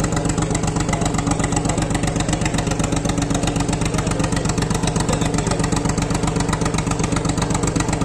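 An engine running steadily at idle with a fast, even chugging pulse.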